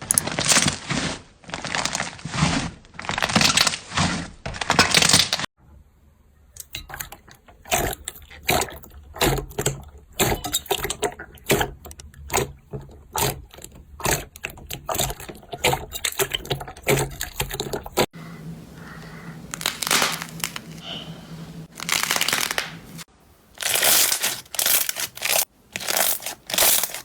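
Slime being squeezed and pressed close to the microphone: rapid, irregular crackling and popping clicks. The sound breaks off abruptly a few times as one clip cuts to the next.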